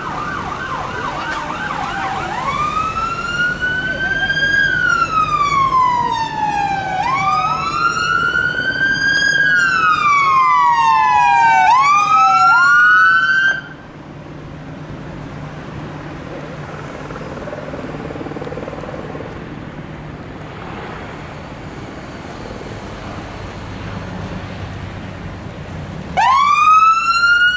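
Ambulance electronic siren responding: a brief fast yelp, then a slow wail rising and falling, which cuts off suddenly about halfway through. Vehicle engine and traffic noise follow, and near the end the siren briefly winds up again.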